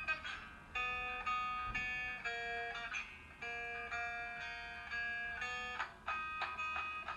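Background music: a melody of plucked string notes, the notes coming more quickly near the end.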